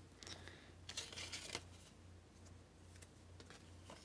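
Faint rustling and handling of paper and cards from an opened mail envelope, a short burst of crinkling about a second in, then soft occasional ticks over a low steady hum.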